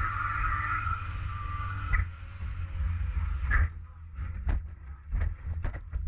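Onboard race-car sound from a hood camera. A steady engine note fades out about three and a half seconds in. After that comes a low rumble with several sharp knocks as the car slides through a cloud of smoke.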